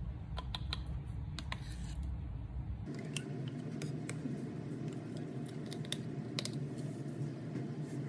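Scattered small plastic clicks and taps from handling a spoon and a plastic lotion tube, over a steady low background hum whose tone changes abruptly about three seconds in.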